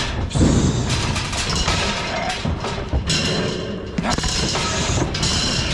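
Calves pushing through a metal head gate into a livestock trailer: repeated thumps and knocks of hooves and the swinging gate, with music playing alongside.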